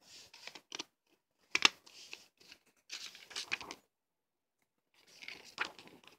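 Paper inserts and a plastic Blu-ray case being handled: bursts of rustling and crinkling as the cards are picked up and flipped. A sharp click about a second and a half in is the loudest sound, with a smaller one near the end.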